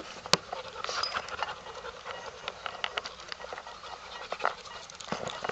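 A dog panting, with scattered small clicks and rustles.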